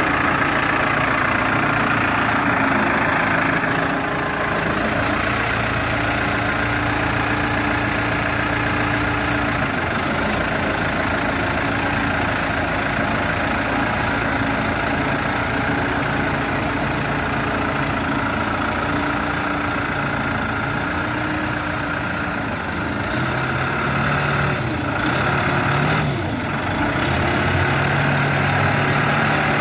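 New Holland B95 backhoe loader's diesel engine running steadily, its pitch shifting a few times as the revs change.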